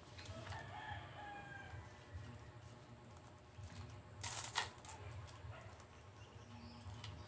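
A rooster crows once, faintly, in the first second and a half. About four seconds in, coins clink sharply in a bowl as they are handled.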